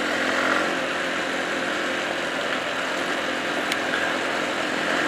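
Dual-sport motorcycle engine running at a steady speed while riding, under a steady hiss of wind and road noise.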